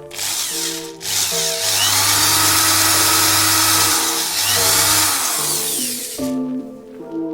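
A power tool running steadily, stopping about six seconds in, over background music.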